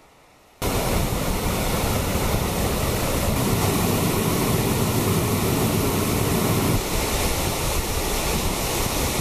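Steady rushing of a small waterfall, white water cascading down a rocky channel. It starts suddenly about half a second in.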